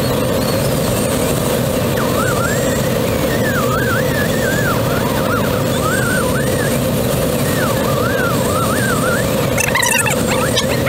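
Steady rush of air over the cockpit of a Twin Astir glider in flight. Above it, an audio variometer's electronic tone warbles up and down in pitch, tracking the glider's climb and sink in thermals. A short burst of clicking comes near the end.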